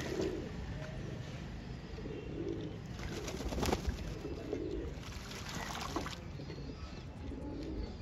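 Domestic pigeons cooing, several low coos. Bathing pigeons flap their wings and splash in a shallow metal tray of water, in two spells: about three to four seconds in and again near six seconds.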